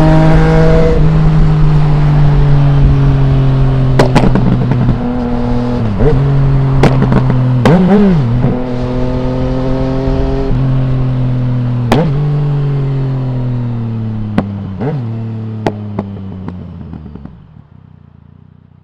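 2020 Yamaha MT-09's inline-three engine through an Akrapovic full exhaust without its dB killer, its note slowly falling as the bike slows, with a dip and rise in revs about eight seconds in. Sharp cracks from the exhaust are scattered throughout. The sound fades out near the end.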